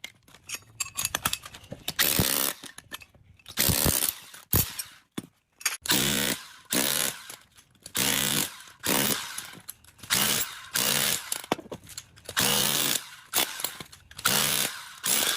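Handheld power tool run in repeated short bursts, about eight trigger pulls roughly two seconds apart, while dismantling a three-phase induction motor.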